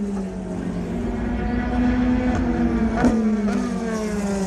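Race car engines at speed, their pitch sliding slowly down twice, with a sharp crack about three seconds in.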